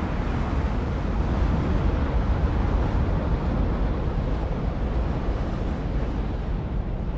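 Strong tornado wind blowing, a deep, steady rush of wind noise on the microphone that eases slightly near the end.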